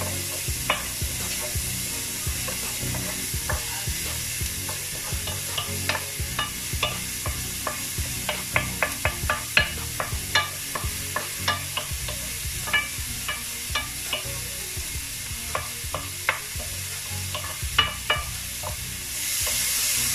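Diced carrots, peas and onions sizzling in oil in an electric skillet while a wooden spatula stirs them, knocking and scraping against the pan in a run of irregular taps. A louder hiss comes in near the end.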